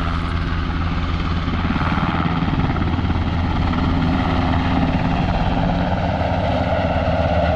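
Helicopter flying close by, its rotor and engine running loud and steady with a fast, even beat of the blades.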